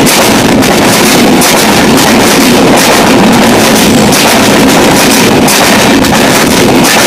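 Coaches of an express passenger train passing at speed on the next track: a loud, steady rush of wind and rolling wheels, with repeated clacks as the wheels cross rail joints.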